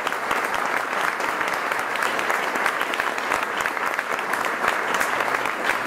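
Audience applauding: many hands clapping at a steady level after the last note of a song.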